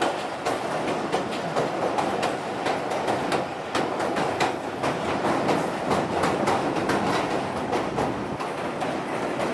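Passenger train running over a steel truss railway bridge: a steady rumble of wheels on the rails with a dense run of sharp, irregular clicks and clatter.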